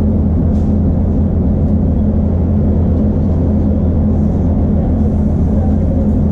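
Inside an Iarnród Éireann Class 2600 diesel multiple unit moving slowly: the underfloor diesel engine gives a steady low hum, with faint rumble from the running gear and a couple of light ticks.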